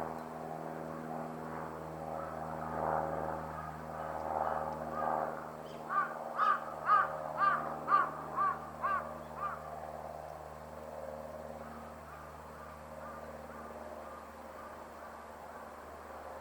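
A bird gives a rapid series of about eight loud calls, roughly two a second, starting about six seconds in and fading away over the last few. A steady low hum runs underneath.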